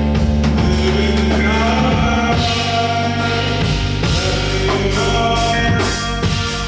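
Live band playing: sustained amplified chords and bass over drums, with singing.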